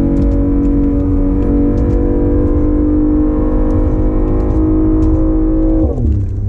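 BMW i8's turbocharged 1.5-litre three-cylinder engine through a custom exhaust, heard from inside the cabin, running with a steady drone under load. Its pitch falls sharply near the end.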